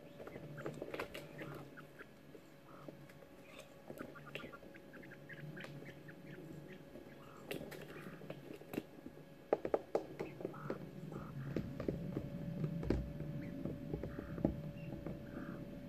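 Young coturnix quail chicks shuffling and scratching in wood shavings, with many short ticks and taps and scattered soft, short chirps. A steady faint hum runs underneath.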